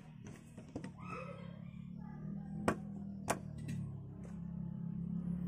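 Light clicks and knocks of plastic microphone accessories being handled, with two sharp clicks about two and a half and three seconds in, over a steady low hum.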